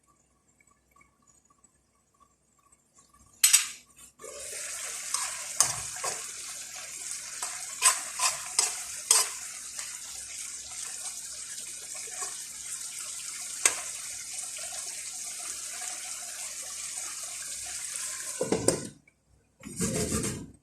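Water running steadily with dishes and cutlery clinking against each other, starting a few seconds in after a sharp knock and stopping abruptly near the end. A few low thumps follow.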